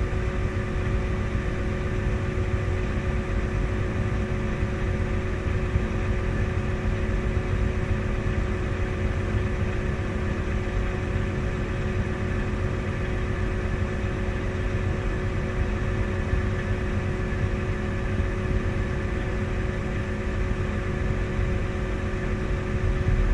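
Farm machinery engine running steadily: an even low drone with a constant whine held over it.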